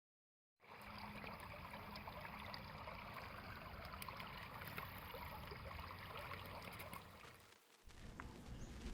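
Faint sound of a river's running water, an even rushing with small ticks and splashes, briefly cut off a little before the end.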